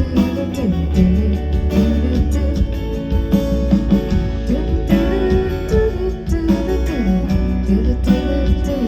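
Live band music: guitar over bass and a steady beat, with a gliding melodic line in the middle register.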